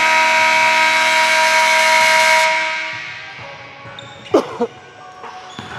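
Gym scoreboard horn sounding a steady, many-toned blast that stops about two and a half seconds in and dies away in the hall's echo, marking the end of the quarter.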